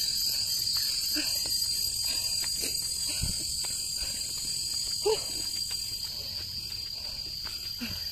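Continuous high-pitched drone of forest insects, steady throughout, with one brief louder sound about five seconds in.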